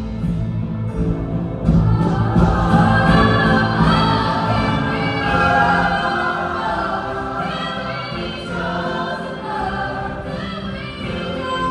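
A choir singing, many voices holding long notes together over steady low accompaniment.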